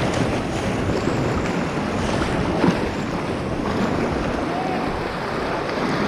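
Churning whitewater rushing around a packraft, with wind buffeting the microphone. One brief, sharper hit stands out about two and a half seconds in.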